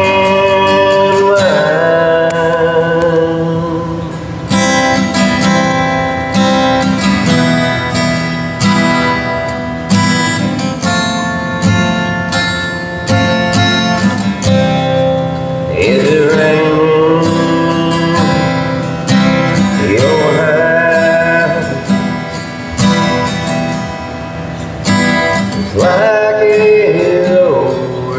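A man singing a country song, accompanying himself on a strummed acoustic guitar; his voice comes in and out in long sung lines over the guitar.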